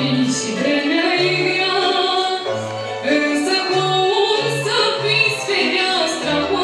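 A young woman singing a song into a microphone, holding long notes, over instrumental accompaniment with sustained bass notes.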